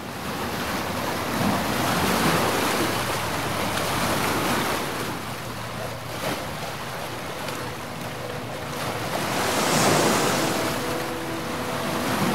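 Ocean surf: waves breaking and washing in, swelling and ebbing in several surges, the biggest about ten seconds in. Faint steady tones come in near the end.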